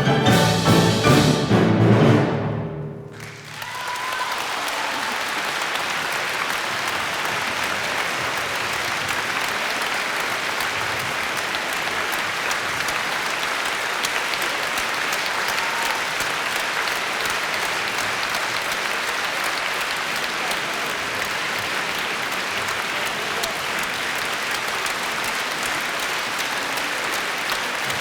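A symphony orchestra plays the loud closing bars of a piece, ending about three seconds in, and a concert audience then breaks into steady, sustained applause.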